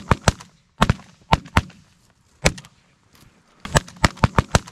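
Volley of shotgun fire from several waterfowl hunters shooting at once: a dozen or so sharp shots in quick, overlapping bursts, with a lull of about a second in the middle before a final flurry.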